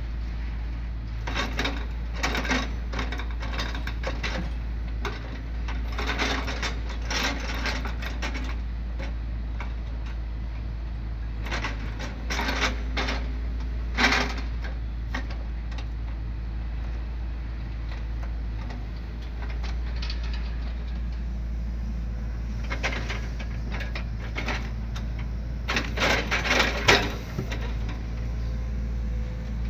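Hydraulic excavator's diesel engine running steadily while its grapple loads logs, with several clusters of knocking and clattering as the logs are gripped and bump against each other and the truck bed. A sharp knock comes about halfway through, and the loudest clatter comes near the end.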